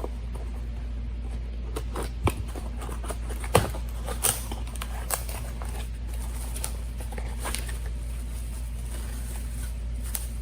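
Scattered small clicks and taps of hands handling a van's power window switch unit, feeling for the clips that hold it in the door, over a steady low hum.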